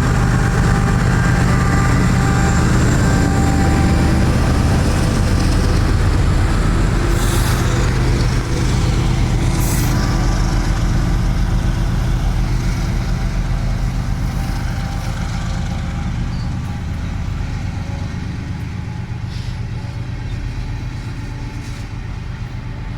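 Diesel locomotives of a freight train running under power: a steady, deep engine drone that gradually fades away. Two brief hisses about 7 and 10 seconds in.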